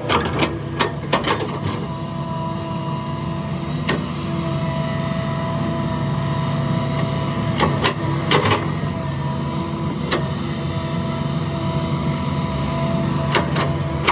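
Heavy diesel earthmoving machinery running steadily with a constant engine hum. Sharp metallic knocks and clanks come every few seconds, a few close together about a second in and a pair around the middle.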